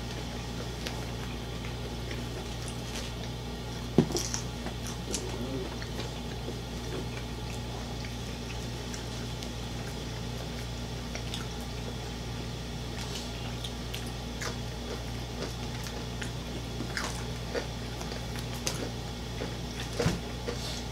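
People chewing fried chicken and sides, eating with their hands: wet chewing and small clicks and ticks of fingers and food against plates, over a steady low hum. A sharp knock comes about four seconds in, and a few louder clicks near the end.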